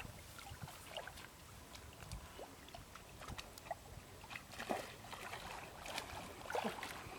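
Shallow water splashing and sloshing in a string of small, irregular splashes, a few louder ones near the end.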